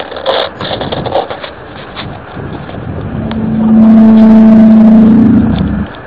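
A low, steady horn-like tone of the kind posted as "sky trumpets" swells up about three seconds in. It holds for about two seconds, rises slightly in pitch and cuts off suddenly near the end. Before it comes a crackling rustle with scattered clicks.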